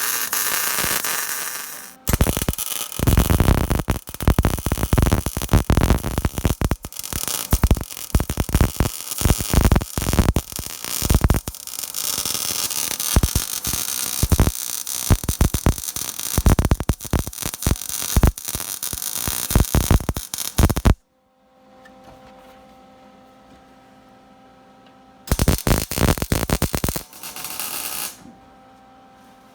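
Angle grinder cleaning up welded steel bracket work, running in uneven surges for about twenty seconds, then cutting off suddenly. A low steady hum remains, and a shorter grinding burst comes near the end.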